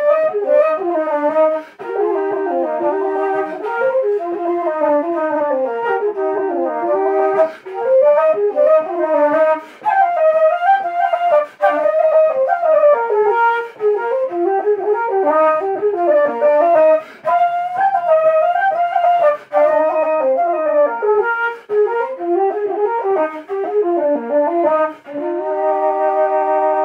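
Two wooden Irish flutes pitched in B-flat playing a lively jig together, the fast melody broken by quick breaths. They end on a long held note.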